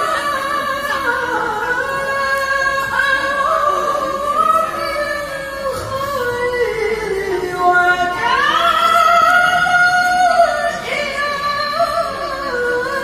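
Melodic Quran recitation (tilawah) by a qori: one voice holding long, high notes with sliding ornaments, climbing sharply in pitch about eight seconds in.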